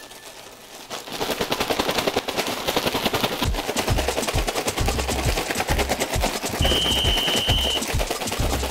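Plastic bag of enoki mushrooms and potato starch being shaken hard to coat them: a fast, dense rustling rattle that starts about a second in, joined by low thuds. A short high steady tone sounds near the end.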